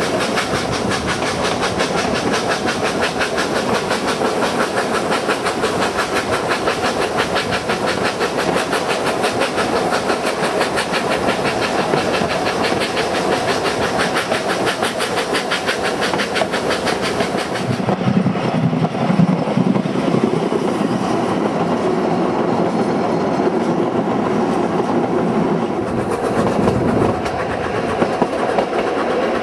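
Narrow-gauge Isle of Man Railway steam train running, heard from an open carriage window: a steady, rapid clatter of wheels and rushing air. A little over halfway through, the sound turns duller and lower.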